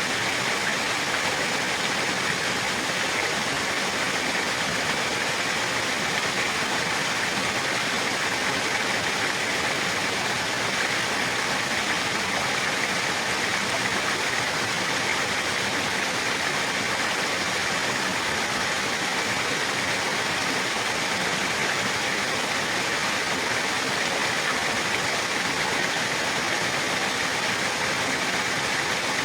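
Running water rushing steadily, an even hiss with no breaks or changes.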